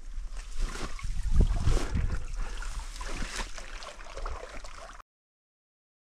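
Dry grass and clothing rustling and scraping against a body-worn camera, with irregular low rumbling buffets on the microphone. It cuts off suddenly about five seconds in.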